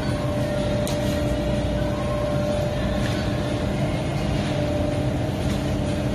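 Supermarket ambience: a steady rumble and hiss with a constant hum underneath, and a faint click about a second in.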